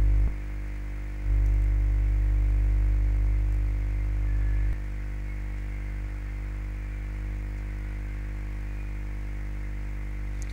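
Steady low electrical mains hum with faint hiss, and no speech. The hum drops in level less than a second in, comes back about a second later, and drops again a little before five seconds in.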